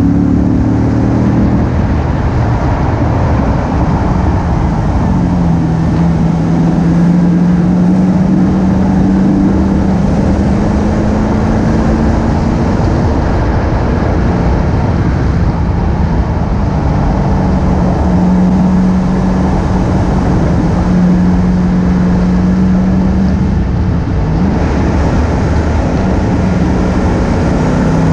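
Car engine pulling steadily around a racetrack at moderate speed, its note rising slowly and then holding, easing off briefly about 24 seconds in. It is heard from outside the car under a heavy, steady rush of wind and tyre noise.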